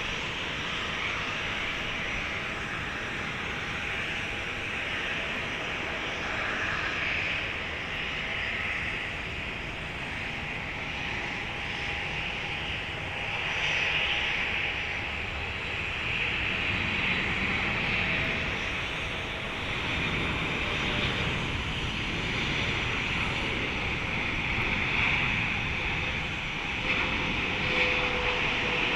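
Jet airliner engines on landing approach: a steady rushing whine that swells and eases a little, with a faint low tone sliding slightly down near the end.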